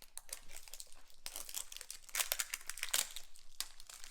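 Wrapping paper around a toy being pulled off and crumpled by hand: irregular crinkling and rustling with some tearing, loudest about two and three seconds in.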